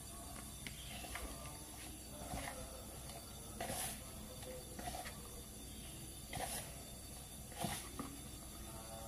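Hands kneading and squeezing a soft tapioca-starch dough in a bowl: irregular soft squishing and rubbing noises, with a few louder swishes.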